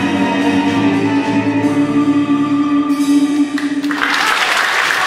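Folk-instrument orchestra of domras and balalaikas holding the final chord while the singer sustains the last note. The chord cuts off about four seconds in and the audience breaks into applause.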